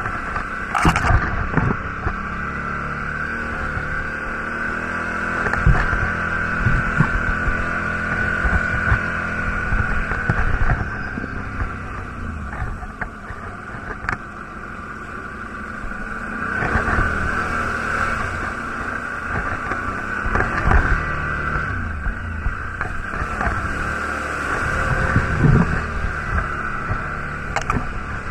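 Quad bike (ATV) engine running as it is ridden over a rough, muddy trail. The engine swells and eases off with the throttle, with frequent short knocks and rattles from the bike bouncing over the ground.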